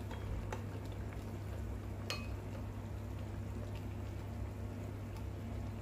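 Pot of beef and vegetable soup simmering on the stove, a soft steady bubbling over a low hum. A few light clicks, and one sharp ringing clink on the metal pot about two seconds in.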